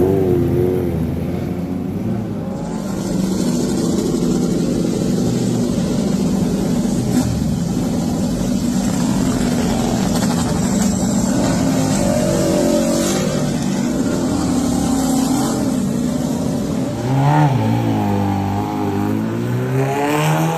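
Superbike engines running in the pit lane, a continuous drone. Near the end one engine's pitch swoops down and back up as a bike revs or passes.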